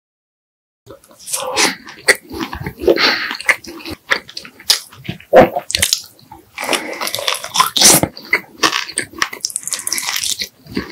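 Close-miked mukbang eating of spicy cheese pork back ribs: wet chewing, smacking and gnawing of meat, dense and irregular. It starts about a second in.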